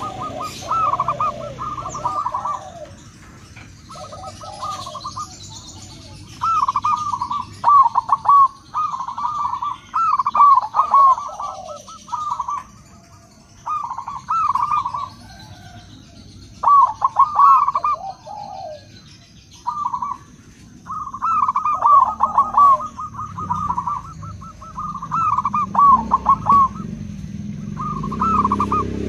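Zebra dove (perkutut) cooing its song: bouts of rapid, repeated staccato notes, phrase after phrase with short pauses between.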